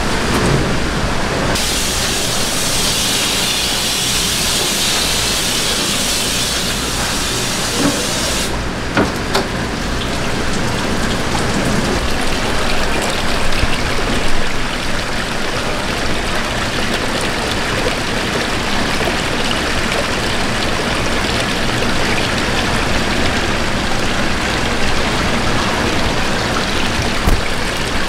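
Steady rush of water circulating and splashing in live-fish tanks, over a low pump hum. A brighter hiss stands out from about two seconds in until about eight and a half seconds in.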